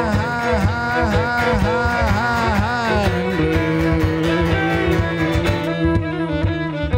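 Live band playing a Scottish-flavoured blues number on acoustic guitar, fiddle and bodhrán. A short rising-and-falling sliding phrase repeats for about three seconds, then gives way to held notes.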